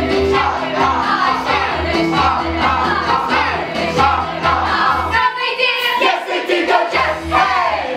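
A stage chorus of mixed voices singing a pantomime song together over instrumental accompaniment with a steady pulsing bass. The bass drops out for about a second and a half around five seconds in, then comes back.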